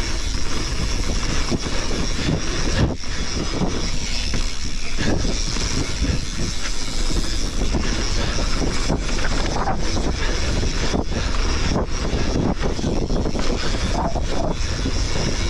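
Wind rushing over the action camera's microphone as a mountain bike descends a dirt trail at speed, with tyres on loose dirt and frequent knocks and rattles from the bike over bumps.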